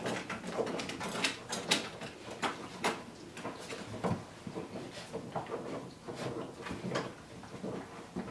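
Puppies playing and scrambling about on a rug and tile floor: irregular scuffling with sharp clicks and small knocks.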